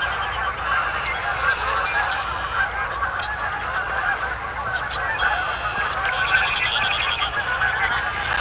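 A large flock of Canada geese honking, many overlapping calls running together into one continuous chorus.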